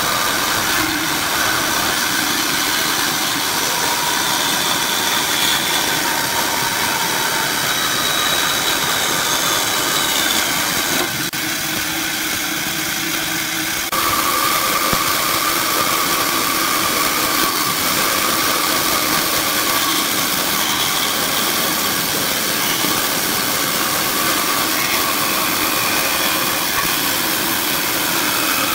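Bandsaw running steadily, its blade cutting a curved line through a thick pine block. The sound shifts abruptly about halfway through.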